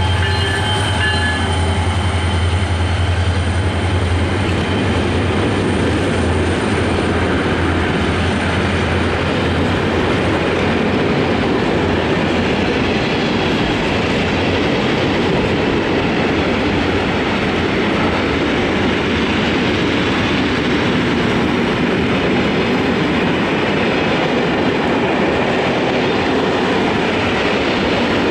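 Freight wagons rolling past on the rails: a steady loud rumble of wheels with clickety-clack over the rail joints. Underneath, the low drone of the hauling NGT26CW-3 diesel locomotives fades away over the first several seconds as they move off.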